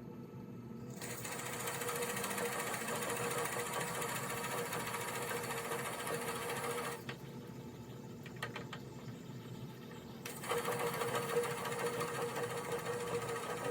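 Wood lathe running with a 5/8-inch Forstner bit boring into a dense goncalo alves hardwood blank, a steady motor hum under a harsh cutting noise. The cutting stops for about three seconds in the middle, where the bit is backed out with a few clicks, then resumes.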